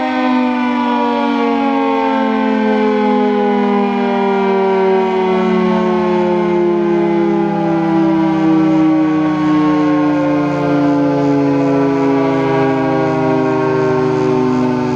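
Federal Signal 3T22 three-tone outdoor warning siren sounding its chord at full alert, the pitch sliding slowly and steadily lower.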